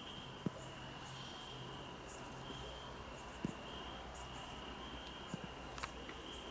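Crickets chirping: a steady high trill with short breaks, and quicker pulsing chirps above it. A few faint knocks fall scattered through.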